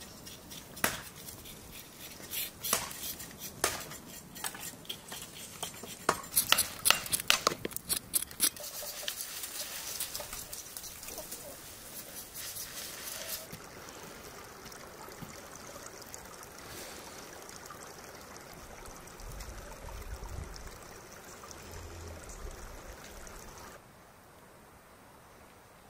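Metal cookware and utensils clinking and knocking in a quick, irregular run of sharp clinks for about eight seconds. A steady hiss follows for several seconds, then quiet outdoor ambience.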